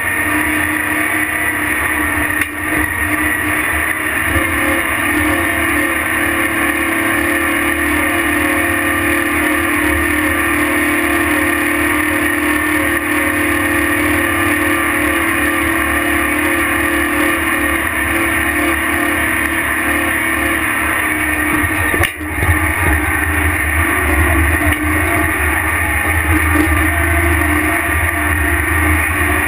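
Earthmoving scraper's diesel engine running steadily as the machine travels over dirt, a loud continuous drone. A single brief knock comes about three-quarters of the way through.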